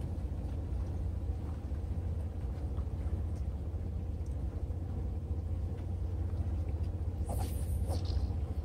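Wind buffeting the microphone, a steady low rumble, with a brief high rustle or hiss about seven seconds in.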